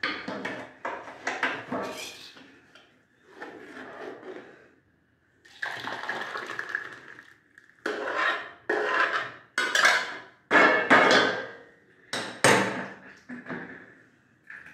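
Steel ladle scraping and clanking against an aluminium cooking pot as thick kadhi is scooped and poured into a steel bowl, with wet splashes of the liquid. The strokes come in a run, quickest and loudest in the second half, about one a second.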